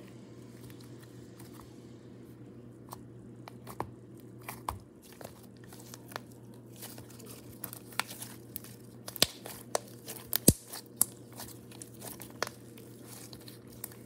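Fluffy slime being squeezed and stretched by hand, giving sharp pops and crackles as trapped air bubbles burst. The pops are sparse at first, grow more frequent in the second half, and the loudest comes about three quarters of the way through.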